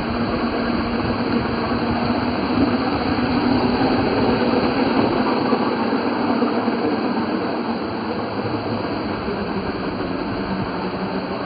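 Water pouring down a fountain's water wall and splashing into a shallow pool, as an electric RC Baja Bug drives through the water. A steady rushing, a little louder in the middle as the car passes under the falling water.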